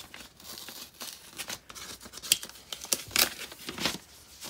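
Packaging being handled: irregular crinkling and rustling, with the sharpest crackles about two and three seconds in.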